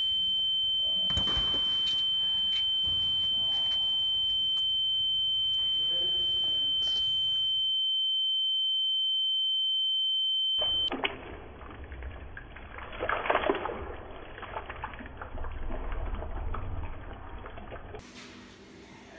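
A steady, high-pitched pure tone that holds for about ten seconds and then cuts off suddenly. After it, water runs from a tap and splashes in a washbasin.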